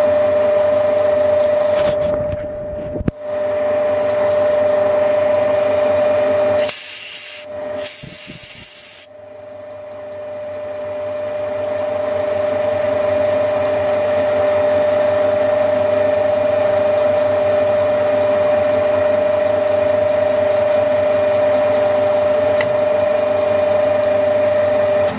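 Milling machine running with a steady whine while milling a model traction engine's front hub. The sound dips twice, with two short harsh hisses about seven and eight seconds in.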